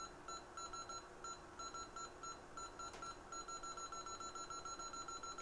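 An electronic beeper sounding rapid, short, high-pitched beeps, about six or seven a second, in uneven runs with brief gaps. A single faint click about three seconds in.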